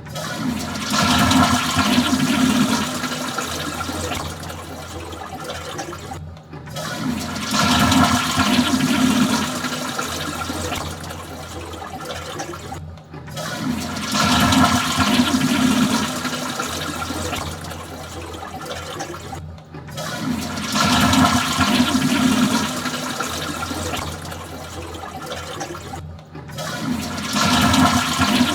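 Toilet flushing over and over, a new flush about every six and a half seconds. Each opens with a loud rush of water for a couple of seconds, then tapers to a quieter running drain, and a brief break comes before the next.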